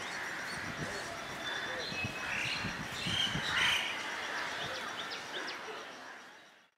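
Outdoor trackside ambience with birds chirping and people's voices in the background, fading out just before the end.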